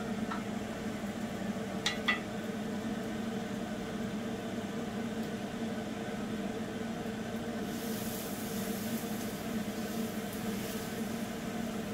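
Spinach fritters frying in oil in a pan, over a steady low hum, with two light clicks about two seconds in. From about eight seconds a brighter sizzle comes in as spoonfuls of batter go into the hot oil.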